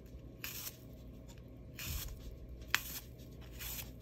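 A kitchen knife slicing through a raw apple held in the hand: about four crisp cutting strokes, the sharpest a click nearly three seconds in.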